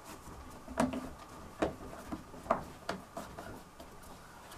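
Plastic trim ring being pressed by hand onto a Kenwood subwoofer's frame, giving several sharp clicks and knocks as it seats.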